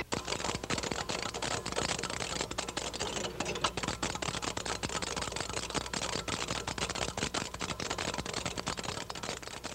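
Rapid, irregular clicking and rattling, many sharp clicks a second, which starts abruptly.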